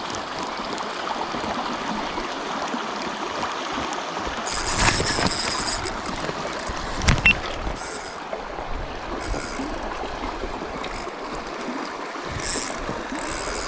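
Steady rushing of a flowing river, with several short high-pitched buzzing bursts over it.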